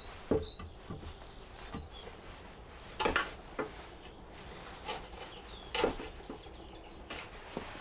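Several irregular wooden knocks and thuds as timber frame pieces are handled and fitted together, the louder ones about three seconds in and just before six seconds. A bird chirps faintly in the background during the first few seconds.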